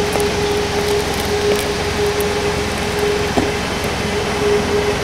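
Steady machine hum with a constant mid-pitched whine running through it.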